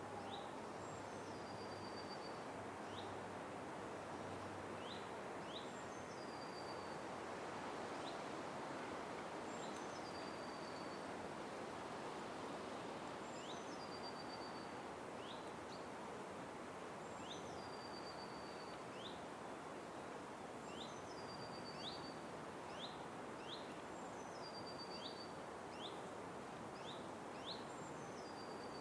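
Forest ambience: a steady background hiss with a bird repeating a short, high, falling call every few seconds, and brief rising chirps in between.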